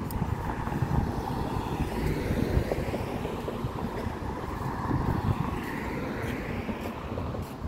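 Wind buffeting the microphone over the steady noise of road traffic, with a car passing on the road.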